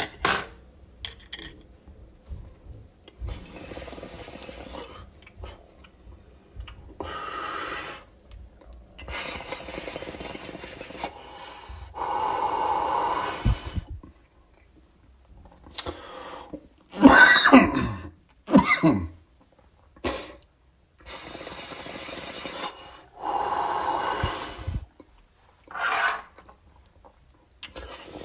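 A person drawing long inhales through a dab rig, a few in a row, then a short fit of coughing about two thirds of the way through, followed by heavy exhales and another cough near the end.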